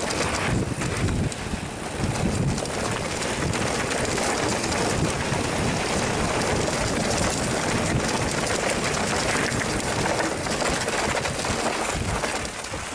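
Steady rush of wind on the microphone mixed with the rumble and rattle of a mountain bike riding down a dirt trail, easing slightly near the end.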